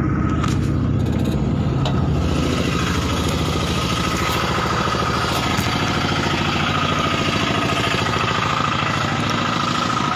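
A motor vehicle's engine idling steadily close by, its rapid even firing overlaid by a steady higher whine.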